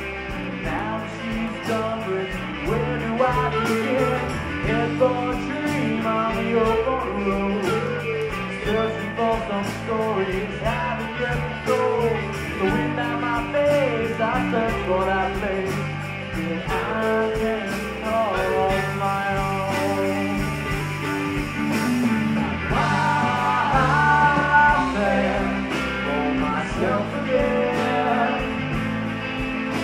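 Live rock band playing: electric guitars, bass and drums keeping a steady beat, with vocals.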